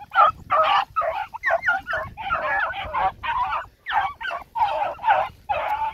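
A pack of beagles baying in overlapping voices while running a wounded rabbit, repeated calls about twice a second with no break.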